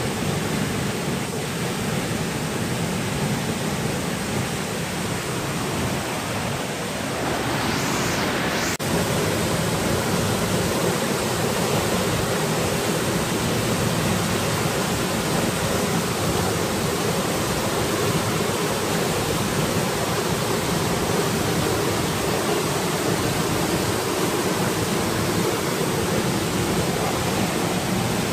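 Waterfall pouring down a rock face into a rocky pool: a steady rush of falling water. It swells briefly and shifts abruptly about nine seconds in.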